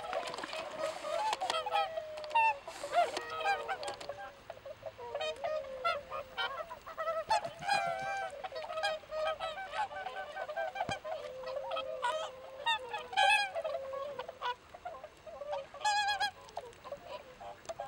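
A flock of swans calling on the water: many calls overlap, one after another with hardly a pause.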